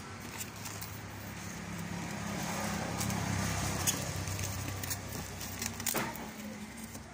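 Cardboard, styrofoam and a coiled power cable being handled and lifted out of a box: rustling with several sharp clicks and knocks, the loudest about six seconds in. A steady low hum runs underneath.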